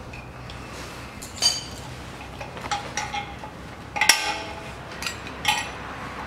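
Metal clinks and clicks of circlip pliers and a screwdriver against a steel snap ring and the hub bearing bore of a front steering knuckle, as the ring is squeezed and pried out. The loudest clink, which rings briefly, comes about four seconds in, with smaller clinks before and after it.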